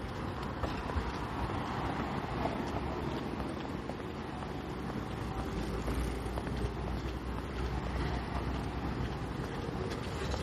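Wind buffeting the microphone over the steady sound of road traffic.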